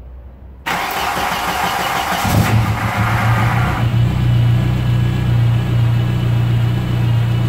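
Volkswagen Golf Mk3 petrol engine cranked by its starter about a second in, catching after about a second and a half and settling into a steady idle while it runs on flushing oil. The exhaust is loud because the exhaust system is largely missing, and there is a hum that the owner puts down to the power steering pump.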